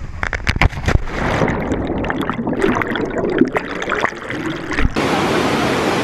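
Rushing water at a waterfall, with several sharp knocks in the first second. About five seconds in, the sound cuts to a steadier, even rush of falling water.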